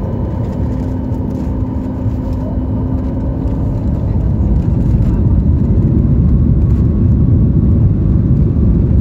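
Boeing 737 MAX 8's CFM LEAP-1B jet engines and airframe rumble, heard from inside the cabin. The rumble grows steadily louder from about halfway through as thrust builds for the takeoff roll.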